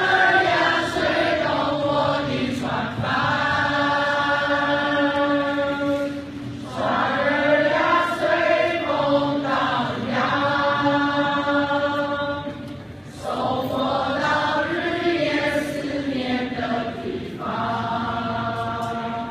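A large group of students' voices singing together in unison, in long held phrases of a few seconds each, with short breaks between them.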